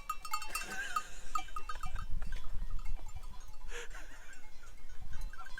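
Livestock bells clinking irregularly on a grazing flock of sheep and goats, with occasional bleating. Wind rumbles on the microphone underneath.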